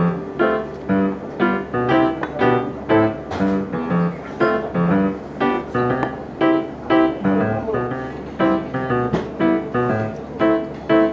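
Background music: an instrumental tune with evenly paced notes, about two to three a second.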